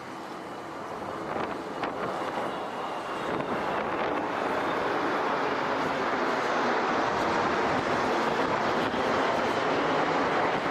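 Jet engine roar from a formation of military jets flying past overhead, growing louder over the first few seconds and then holding steady.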